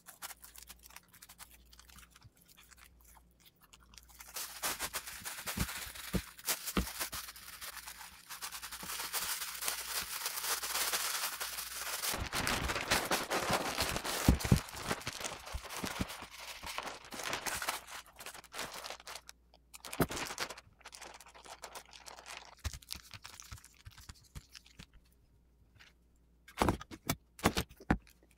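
Crinkling and rustling of plastic film and cloth being handled and smoothed by hand, a dense crackle with many small clicks that runs for over ten seconds and then thins out. A few sharper clicks and taps come near the end.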